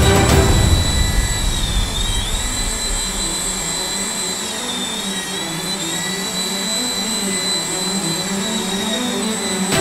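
Nano Hercules RC toy helicopter's electric motor and rotors whining steadily at a high pitch. The whine dips briefly in pitch twice, about two seconds in and again about five seconds in.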